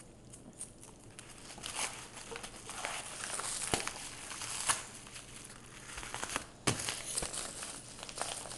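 Paper mailing envelope crinkling and rustling as it is handled and torn at to open it, in irregular scratchy bursts with a couple of sharp clicks.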